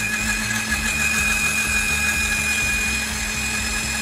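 Electric blender running at full speed, blending milk, banana and ice into a milkshake: a steady motor whine with a low hum under it, holding even throughout.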